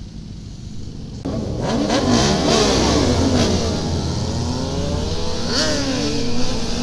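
Several sport motorcycle engines revving and accelerating away together, their pitches rising and falling through gear changes; it grows loud about a second in.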